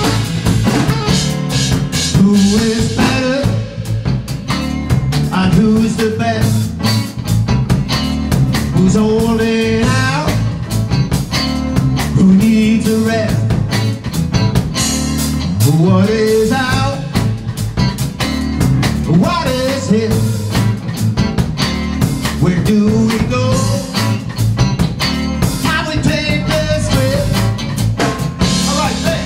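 Live blues band playing: electric guitar, keyboard and drum kit over a steady groove, with a lead melody that slides up in pitch several times.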